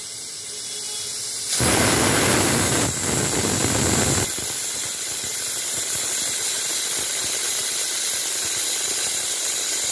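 Stainless steel pressure cooker whistling: steam hisses out under the weight valve, surging much louder about a second and a half in for nearly three seconds, then settling into a steady hiss. The whistle is the sign that the cooker has come up to full pressure.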